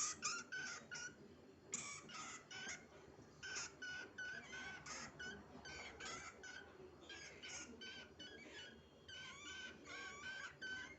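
Rat squeaking: a run of short, high-pitched squeaks, about two a second, with a couple of brief pauses.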